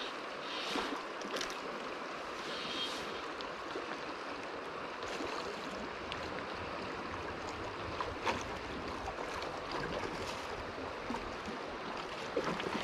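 Steady rush of a shallow river running over stones and gravel, with a few faint short clicks.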